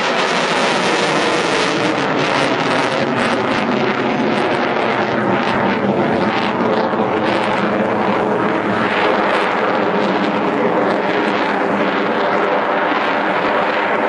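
Loud, steady jet noise from an F-22A Raptor's twin Pratt & Whitney F119 turbofan engines as the fighter flies a display and climbs away.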